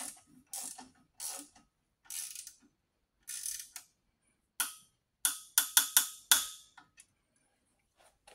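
Icon quarter-inch flex-head ratchet working a bolt: a short burst of pawl clicking on each back-swing, about one every half second to second at first, then a quicker run of louder, sharper strokes a little past halfway before it stops.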